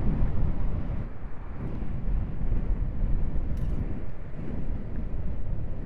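Wind rushing over the microphone of a moving motorcycle, with a steady low rumble of the bike and road underneath.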